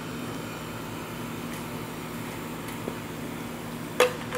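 Steady low mechanical hum in the background, and about four seconds in a single sharp click as a pellet is pressed into the Crosman 760's five-shot pellet clip.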